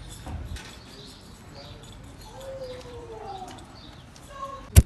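Sidewalk street ambience with faint scattered footstep ticks and a brief falling call in the middle, then a single sharp click near the end.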